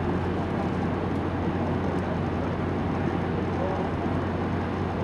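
Steady low hum and constant rumbling background noise, with faint voices under it.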